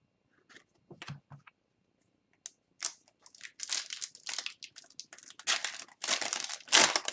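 Foil wrapper of an O-Pee-Chee Platinum hockey card pack crinkling and tearing as it is opened. A few faint clicks at first, then quick rustles from about three seconds in that grow denser and loudest near the end.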